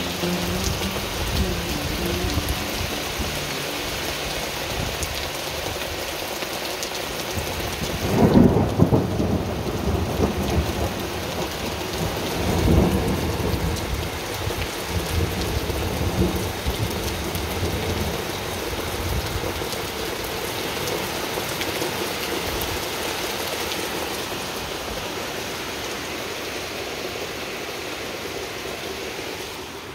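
Steady rain falling, with rolling thunder: the loudest clap about eight seconds in, another about thirteen seconds in and a weaker rumble a few seconds later.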